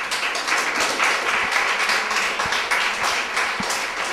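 Audience applauding, a steady patter of many hand claps that is light and feeble ("palmitas flojillas").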